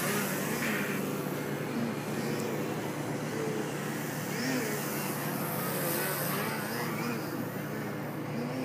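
Electric RC aerobatic plane's Motrolfly 2820 brushless motor and Xoar 13x7 propeller buzzing, the pitch rising and falling again and again as the throttle is worked to hold it in low hovers and knife-edge passes.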